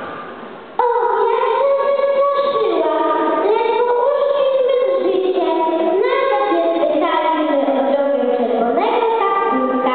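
Children singing a song together in one melody, coming in abruptly about a second in, with held notes that glide between pitches.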